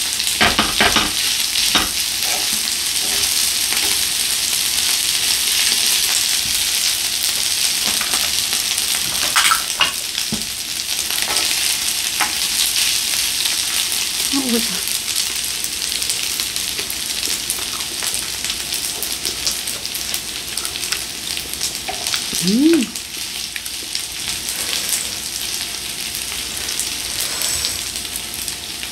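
Rice being stir-fried with leftover grilled beef intestines on a hot grill plate, sizzling steadily while a spatula and chopsticks scrape and click against the pan. A short rising-and-falling pitched sound stands out about two-thirds of the way through.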